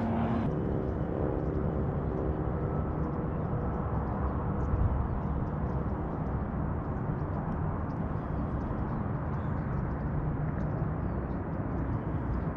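Steady low outdoor rumble with no distinct event, plus a faint hum that fades out over the first few seconds.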